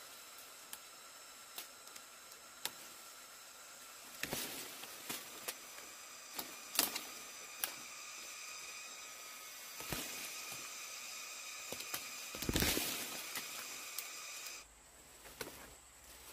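Snapping and rustling of fruit clusters being pulled by hand from a tree's branches: scattered sharp clicks, the loudest a rustling burst about twelve and a half seconds in. A steady high-pitched drone runs underneath and cuts off near the end.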